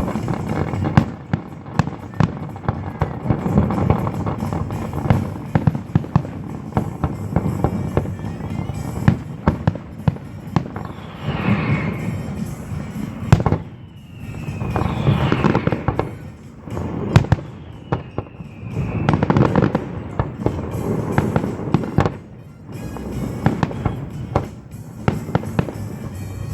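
Firework shells bursting in quick, irregular bangs with crackling, over jazz music playing throughout the show.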